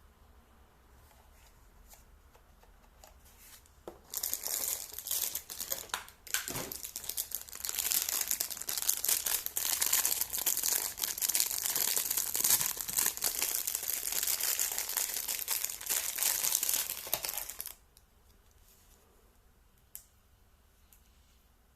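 Packaging being crinkled and torn open by hand: dense crackling starts about four seconds in and stops suddenly near the end, followed by a single click.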